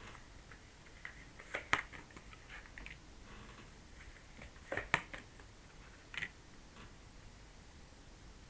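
Tarot cards being handled and laid down: a few soft, separate clicks and taps, with a pair of sharper snaps about five seconds in.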